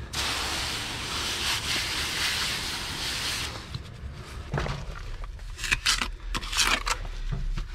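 Steady hiss of water being sprayed to wet down the work for about three and a half seconds, then a wet masonry brush scrubbing along an empty mortar joint in a series of short scratchy strokes, clearing out loose debris before tuck pointing.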